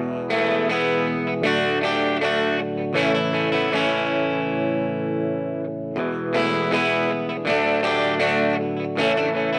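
Background music led by a strummed guitar with an effects-processed, slightly distorted tone, chords struck in a steady rhythm; it starts abruptly at the beginning.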